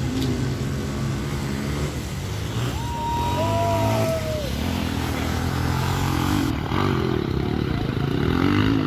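Motorcycle engine running at low revs, its pitch rising and falling slightly.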